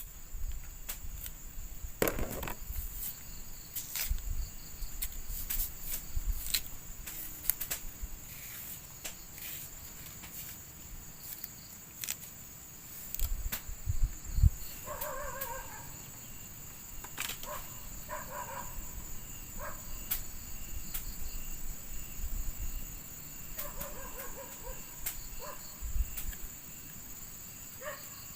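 Insects chirring steadily in a high band throughout, with scattered short knocks and clicks. Short pitched animal calls come three times, about halfway through and again two thirds of the way in.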